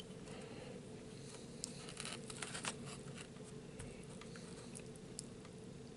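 Faint eating sounds: scattered small clicks and mouth noises of someone chewing a meal, over a steady low room hum.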